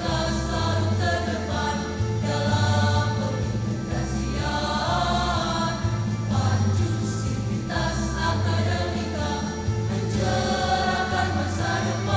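A women's choir singing in several parts, in phrases that change every second or two, with low held bass notes underneath.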